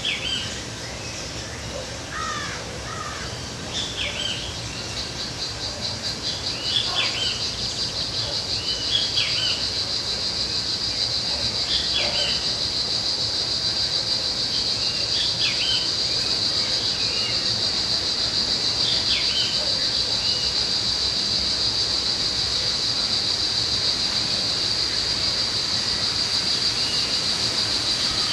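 Birds giving short, falling chirps every few seconds, thinning out later. About four seconds in, a steady, fast-pulsing insect trill starts and soon becomes the loudest sound, typical of crickets or similar insects at dusk.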